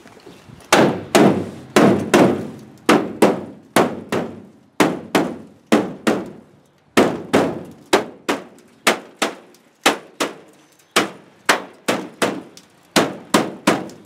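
Rubber mallet hammering a bed rail down onto a Ford F-250 pickup's bed side through a rag: a run of sharp knocks, about two to three a second with short pauses, each with a brief ring from the truck body.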